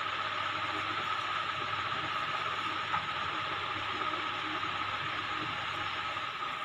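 Steady background hiss with a low hum and a thin steady whine, unchanging throughout, with one faint click about three seconds in.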